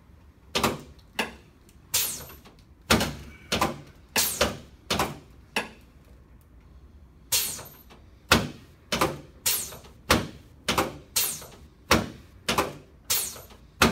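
Sharp knocks from a chiropractic adjustment of a patient lying on his back, repeated about twice a second. They come in two runs, the first slower, with a pause of about a second and a half between them.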